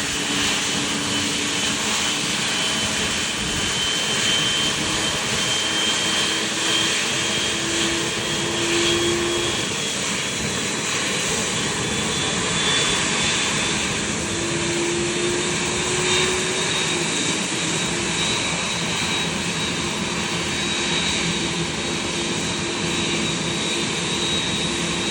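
Boeing 787-8's left GEnx-1B turbofan spooling up during engine start: a steady rushing jet noise with a high whine that slowly rises in pitch as the engine accelerates.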